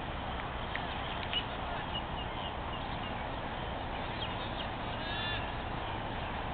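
Distant shouts and calls from football players over a steady rumbling outdoor noise, with one short sharp knock about a second and a half in.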